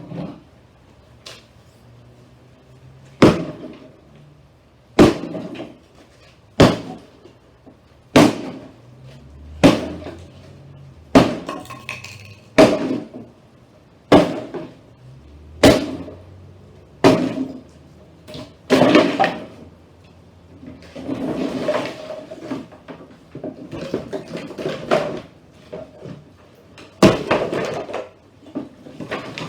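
A console stereo's wooden cabinet being knocked apart: about ten sharp blows, one every second and a half or so, then longer cracking and scraping as the parts give way.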